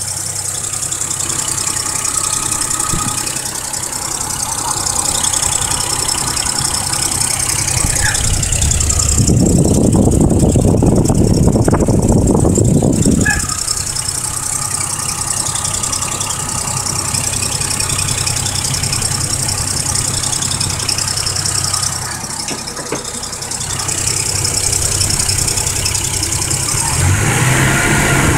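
Toyota 1JZ-GE 2.5-litre inline-six engine running with a squeak from the engine bay. It runs steadily, with a louder, rougher stretch of a few seconds about a third of the way in.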